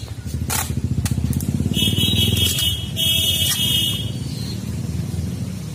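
An engine runs steadily with a low, evenly pulsing rumble. There are a couple of sharp clicks in the first second. A loud high-pitched hiss with a shrill tone in it lasts about a second and a half, starting about two seconds in.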